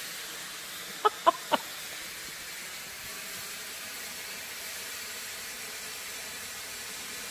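Gold Eruption ground fountain firework burning with a steady hiss of spraying sparks. About a second in, three short, sharp pitched calls, a quarter of a second apart, are the loudest sounds.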